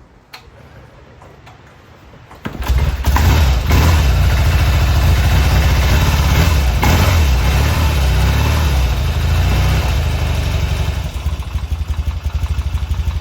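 1975 Norton Commando Mk3's 850 parallel-twin engine being kick-started: it catches about two and a half seconds in and runs loudly, dropping a little and settling toward idle near the end.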